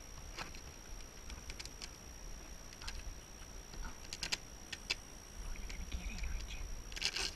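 Raccoon's claws clicking and scraping on a hard plastic lid as it grips the edge and reaches across: scattered light ticks, with a quick flurry of them near the end.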